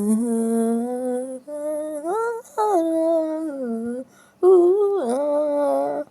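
A woman humming long held notes in three phrases, with pitch slides between them.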